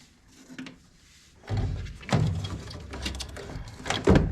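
Handling noises as furnace parts are moved: rustling and clattering that start about a second and a half in, with a sharp knock near the end.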